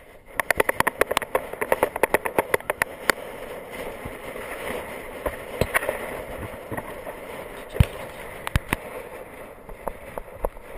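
Wind and road noise on a bicycle-mounted camera as a road bike rolls along a tarmac lane, with a quick, even run of sharp clicks in the first three seconds and a few scattered clicks after.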